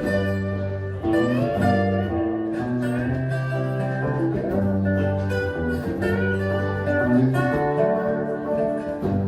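Instrumental break of a slow blues-folk song: guitar-led music with held melody notes, some sliding in pitch, over a steady bass line, with no singing.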